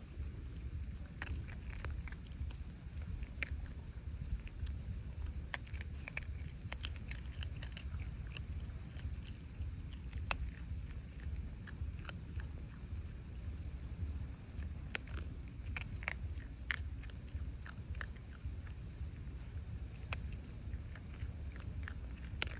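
Raccoon dogs crunching dry kibble off gravel: irregular short, sharp crunches and clicks over a steady low rumble.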